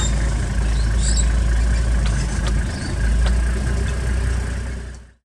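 Safari game-drive vehicle's engine running as it drives along a grassland track, a steady low rumble with a few faint rattling ticks, fading out about five seconds in.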